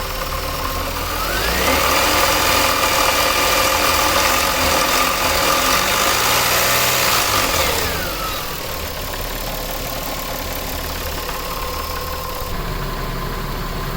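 2000 Nissan Maxima's 3.0-litre V6, warmed up, revved once from idle: the pitch climbs about a second in, holds for several seconds, then drops back to idle. It carries a grinding knock that comes on once the engine is warm and gets louder above 2000 RPM; the owner suspects the timing chain but is not certain.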